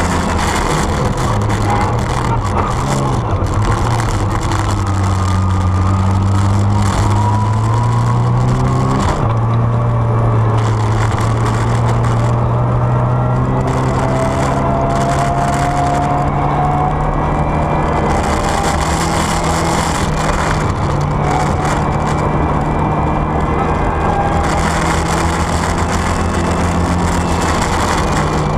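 Rally car's engine at full stage speed, heard inside the cabin, its pitch climbing and dropping with gear changes, one sharp change about nine seconds in followed by a long steady climb. Over it runs the rush of tyres on a snowy road, coming and going.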